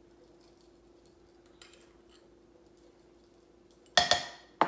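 Two sharp metallic clinks, each with a short ring, about half a second apart near the end: a metal measuring spoon being put down against kitchen dishes. Before them there is only a faint steady hum.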